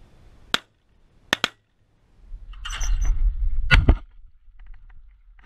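Shotgun shots at clay targets: a sharp crack about half a second in, a quick double crack around a second and a half, and the loudest report just before four seconds. Wind buffets the microphone around the last shot.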